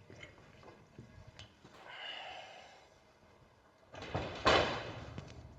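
Z-system overhead gate being pushed shut by hand: a few light clicks and a short creak, then a loud bang about four and a half seconds in as the gate closes.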